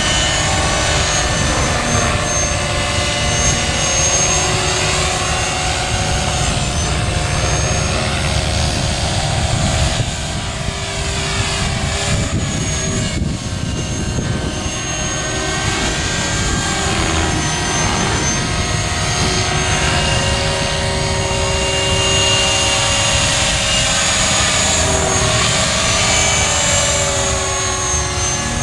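Electric T-Rex 500 RC helicopter flying overhead: a steady whine from its motor and rotors, the tone shifting as it moves through the sky.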